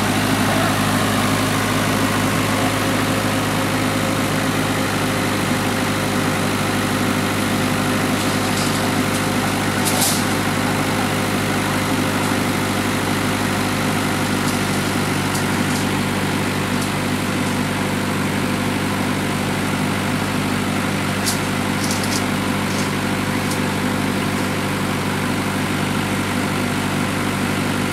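Engine of a small cab-over truck idling steadily, with no revving. A few brief sharp clicks come about ten seconds in and again a little after twenty seconds.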